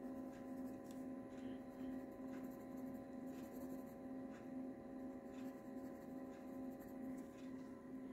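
Faint scratching of a colored pencil shading on card stock, in scattered short strokes, over a steady low electrical hum.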